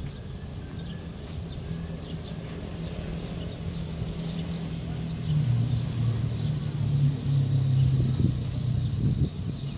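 Small birds chirping over and over in the trees, over a vehicle engine running low in the background that grows louder from about halfway through.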